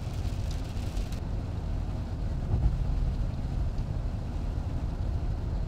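Steady low rumble of a car driving, heard from inside the cabin, with a slightly louder bump about two and a half seconds in.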